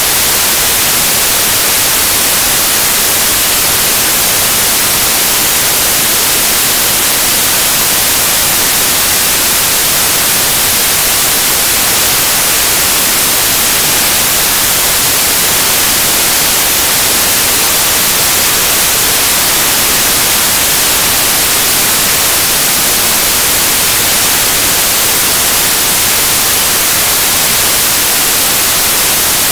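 Loud, steady static hiss like white noise, brightest in the treble, with nothing else heard over it.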